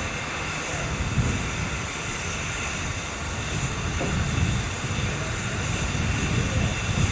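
Steady hiss of steam escaping from a standing 4F 0-6-0 steam locomotive, 43924, with gusts of wind rumbling on the microphone.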